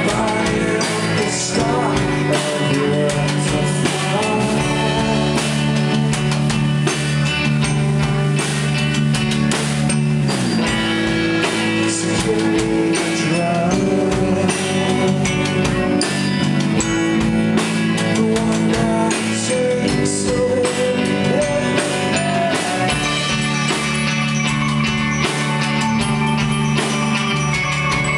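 Live rock band playing: two electric guitars, electric bass and drum kit, with held bass notes that shift every few seconds.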